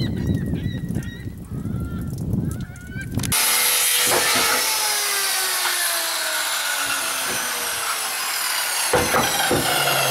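Corded circular saw ripping through a sheet of plywood, starting suddenly about three seconds in, its pitch sliding steadily down under the load of the cut, with a few sharp knocks near the end. Before it, a few short honk-like calls over a low rumble.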